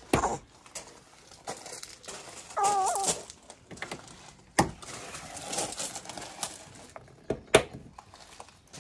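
Press-stud poppers snapping shut one at a time as a fabric blackout curtain is fastened around a van's rear window: several sharp clicks, two of them close together near the end, with fabric rustling between them. A brief wavering whine sounds about three seconds in.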